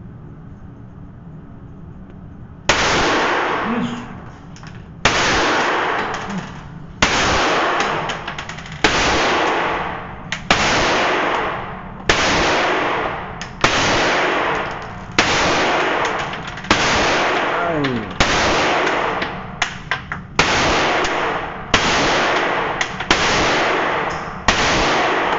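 Single shots from a handgun mounted in a Micro RONI Gen 4 carbine conversion kit, starting about three seconds in. About fourteen shots are fired one at a time, roughly every one and a half to two seconds. Each shot is loud and echoes for a second or more before the next.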